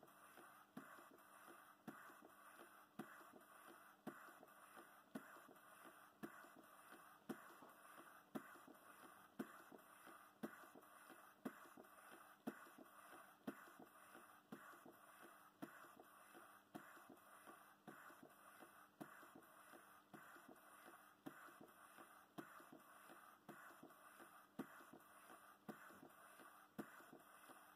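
Scale model Stothert & Pitt beam engine running steadily, its mechanism clicking faintly and evenly about twice a second, with a louder click roughly once a second, over a soft steady hiss.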